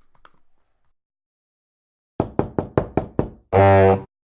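A quick run of about seven sharp knocks, then a short, loud buzzing tone that cuts off abruptly.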